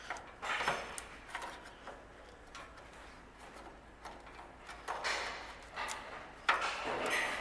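Handling noises of small parts being moved and fitted by hand: a few short bursts of rustling and knocking, the loudest near the end.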